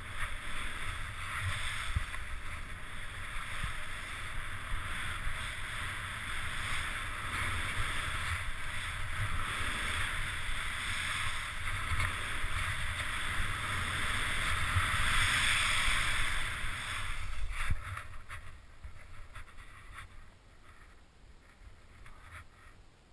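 Skis hissing and scraping over tracked snow on a fast descent, with wind buffeting the camera's microphone. It fades away about eighteen seconds in.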